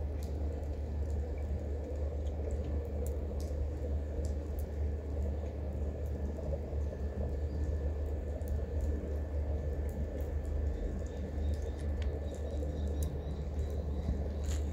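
A cat crunching dry kibble: faint, irregular small clicks over a steady low rumble of outdoor background noise.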